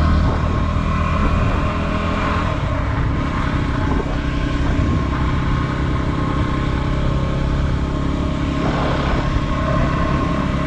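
2016 Yamaha WR250R's single-cylinder four-stroke engine running steadily while cruising in about fourth gear at around 25 mph.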